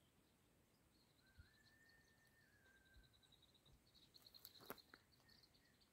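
Near silence: a faint thin whistle held for about two seconds and a faint high trill, with a few soft clicks near the end.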